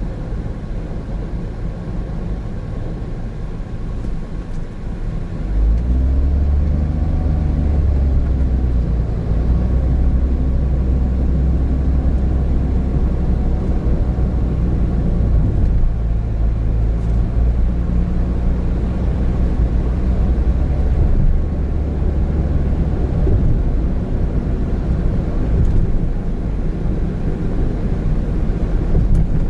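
Road and engine noise of a 2017 Honda N-BOX Custom's 660 cc turbocharged three-cylinder engine, heard inside the car. About six seconds in it grows louder with a rising engine note as the car speeds up, then runs steadily.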